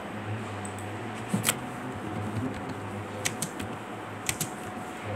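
Computer keyboard keystrokes: a handful of separate clicks, some in quick pairs and threes, over a low steady hum.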